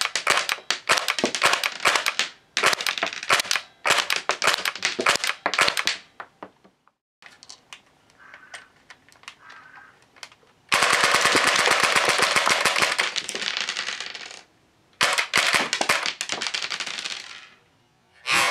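Tokyo Marui Walther MPL gas blowback airsoft submachine gun firing full-auto bursts while ejecting plastic cartridges, each shot a sharp rapid clack. Three short bursts come first, then a few seconds of faint clicking, then one long burst that slowly weakens as the gas pressure falls on full auto, and one more short burst.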